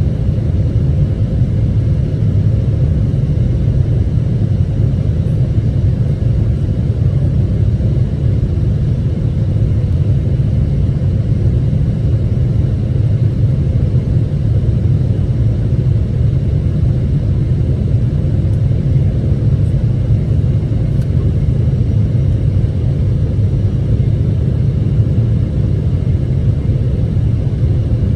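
Boeing 777-300ER giving a steady low rumble that does not change, with a faint constant hum above it.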